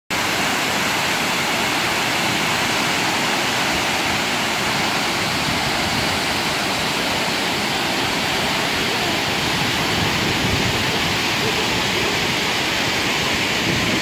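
Tortum Waterfall pouring over a rock cliff in several wide strands: a loud, steady rush of falling water.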